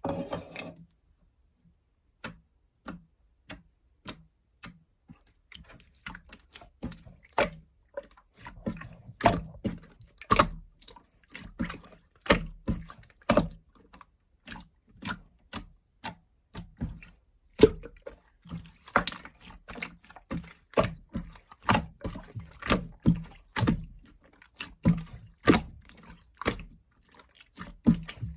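Clear slime being pressed and squeezed by hand, giving a run of wet clicks and pops. They are sparse at first and come faster and louder from about a third of the way in.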